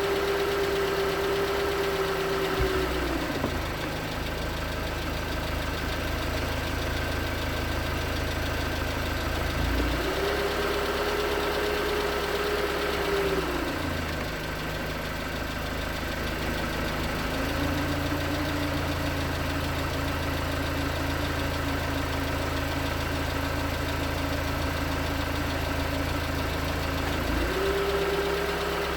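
2019 Hyundai Tucson's 2.0L GDI Nu four-cylinder engine idling cold with a knocking, which the owner takes for piston slap. A steady tone in the running sound drops out and comes back several times, once at a lower pitch.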